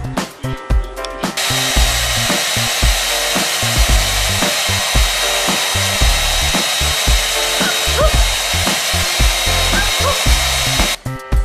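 A small motor appliance comes on about a second and a half in and runs steadily, with rushing air and a thin high whine, then cuts off near the end. Background music with a steady beat plays throughout, and a few short rising squeaks come late on.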